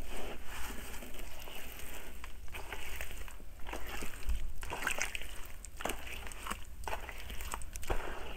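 Hands crumbling gritty soil into a basin of water, then squeezing and kneading the soaked soil into mud: irregular gritty crackling with wet squelching and sloshing.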